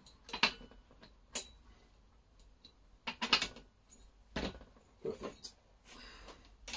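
Sharp metal clinks and knocks of a socket being tried on a chainsaw's flywheel nut and of hand tools handled on a workbench: several separate clicks at uneven intervals, the loudest about half a second and three seconds in.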